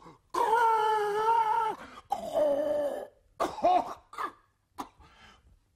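A man's voice singing two long held notes without words, the second dipping slightly, followed by a few short vocal sounds.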